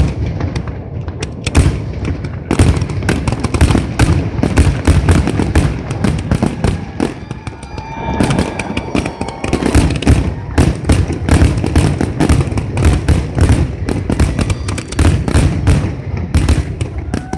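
A fireworks display going off in a rapid, continuous barrage of bangs and crackles, many shells a second. A few whistling tones glide through the middle of the barrage.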